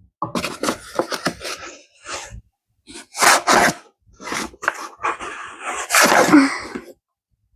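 Flour being scooped and tipped with a measuring cup: a run of quick rustles and taps, with two loud breathy bursts from a person, about three seconds in and about six seconds in.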